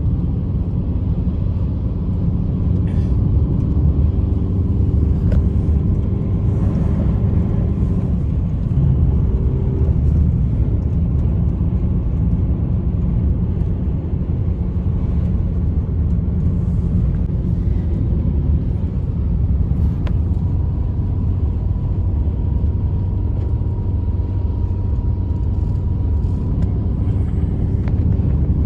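Strong blizzard wind blowing in a steady low roar, with faint thin whistle-like tones coming and going.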